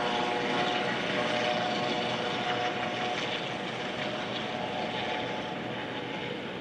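A US Coast Guard MH-65 Dolphin helicopter in flight: steady turbine whine over rotor noise, with a couple of held tones that fade about halfway through.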